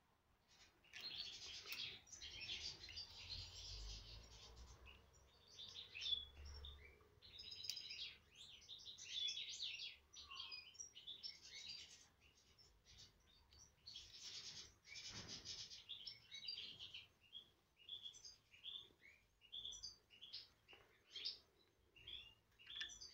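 European goldfinch nestlings begging with rapid, high chirps that come in bouts while they are hand-fed with a syringe.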